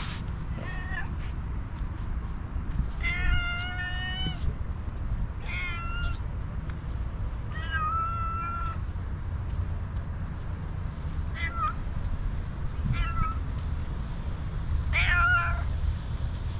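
Tabby cat meowing repeatedly, about seven meows a second or more apart. The one about three seconds in is long and drawn out, the others shorter.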